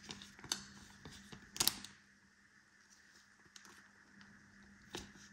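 Trading cards being handled and flipped through: faint scattered clicks and rustles of card stock, with a couple of sharper clicks just before two seconds in and another near the end.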